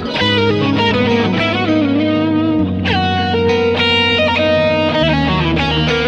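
Instrumental guitar music: an electric guitar with effects plays a melody over held bass notes, with a new phrase starting about three seconds in.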